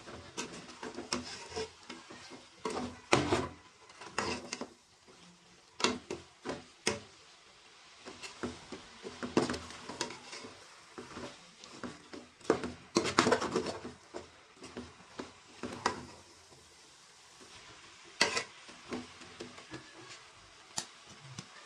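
A metal spoon stirring fenugreek leaves and potatoes in a metal cooking pot. It scrapes and clicks against the pot's sides and bottom in uneven spells, with short quieter pauses between.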